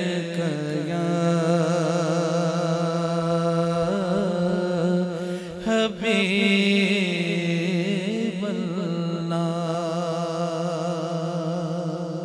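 A male naat reciter singing a long, ornamented devotional phrase, his voice wavering through held notes over a steady low drone. There is a brief break for breath about six seconds in.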